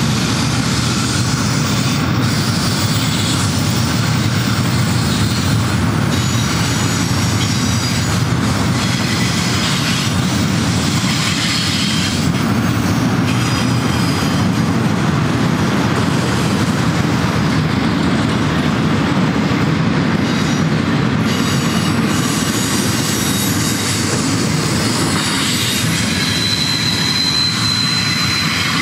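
Double-stack intermodal well cars rolling past at speed: a steady rumble of steel wheels on rail, with thin high wheel squeals coming and going and one held squeal near the end.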